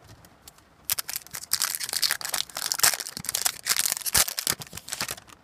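A trading-card pack wrapper being torn open and crinkled by hand, a dense crackling that starts about a second in and runs for about four seconds.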